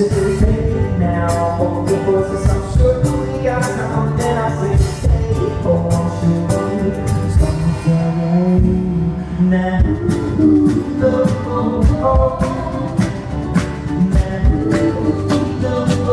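A live band playing: drums keeping a steady beat under bass and other pitched instruments.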